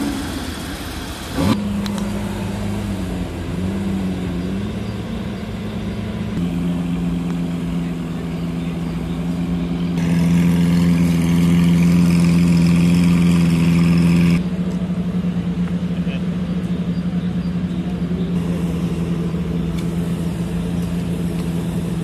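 Several sports-car engines running as cars pull away one after another. One is quickly revved about one and a half seconds in. From about ten to fourteen seconds a louder, steady engine note holds, then a somewhat quieter engine runs on.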